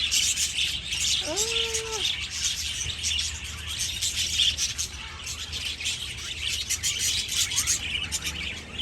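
A flock of budgerigars chattering: a dense, continuous warble of rapid chirps and twitters from many birds at once.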